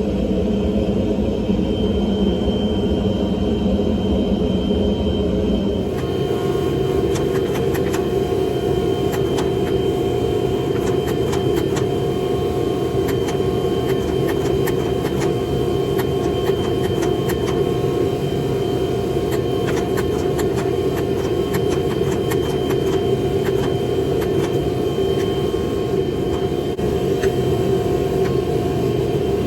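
A steady machine roar with a few held tones and faint irregular crackles; its character shifts about six seconds in.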